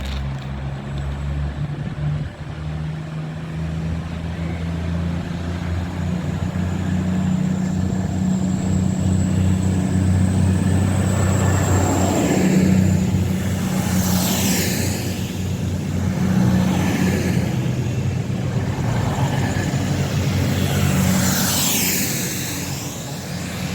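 Class 222 Meridian diesel multiple unit pulling away, its underfloor diesel engines running with a steady low drone that grows louder through the middle. Twice, about halfway through and near the end, sweeping higher-pitched whines rise and fall as the train passes.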